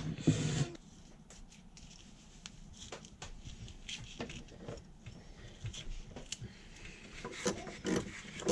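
Small kitchen knife cutting tomatoes and then a jalapeño pepper held in the hand: faint, scattered clicks and scrapes.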